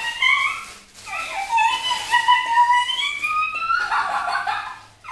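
A child's high-pitched voice drawn out into long, slowly rising wordless squeals.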